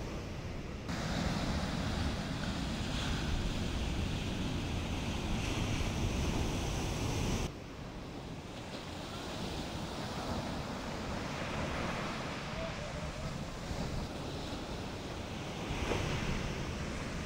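Ocean surf washing on a beach, with wind buffeting the microphone. The sound steps up suddenly about a second in and drops sharply about seven and a half seconds in.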